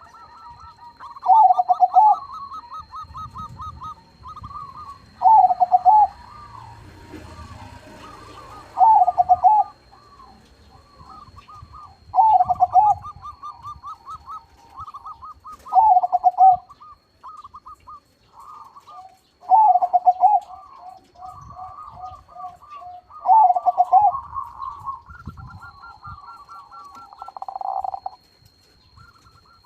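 Perkutut crossing (a zebra dove bred from local and Bangkok lines) cooing: a loud song phrase repeats seven times, about every three and a half seconds, with quieter quick runs of coo notes between the phrases. A faint steady high-pitched whine runs underneath.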